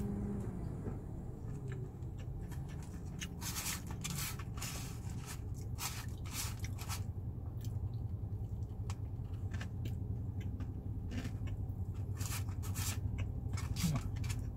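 Mukbang eating sounds: short crisp crackles and crunches of fried chicken being chewed and pulled apart by hand, coming in bunches through the middle and again near the end. Under them runs a steady low hum in the car cabin.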